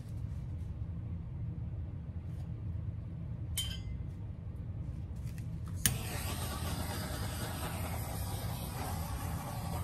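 A sharp click about six seconds in, then a steady rushing hiss switches on and keeps going, over a constant low hum.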